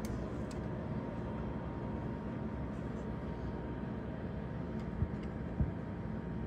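Steady low rumbling background noise with a faint steady hum, broken by two light knocks a little after five seconds in.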